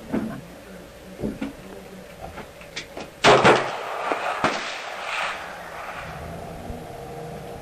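Ruger SR9 9mm pistol shots: two sharp reports about three seconds in, a fraction of a second apart, then a fainter one about a second later, each with a ringing tail; a few light clicks come before.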